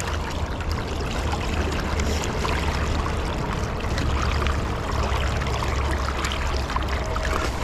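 Steady rushing of a fast-flowing river's current along the bank, with a low rumble underneath.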